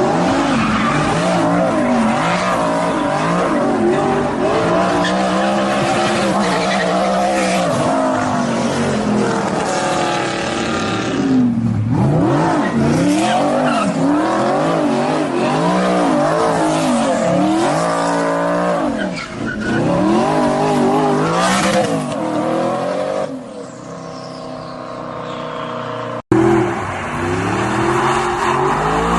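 Audi R8 engine revving hard, its pitch rising and falling again and again as the car drifts and does burnouts, with tyres squealing. The sound cuts abruptly to a new clip about 11 seconds in and again near the end.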